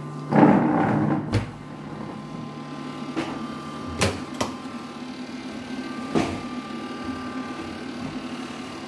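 Incubator door unlatched and pulled open: a loud scraping rush about half a second in, then a few sharp clicks and knocks. A steady hum from the incubator's fans runs underneath.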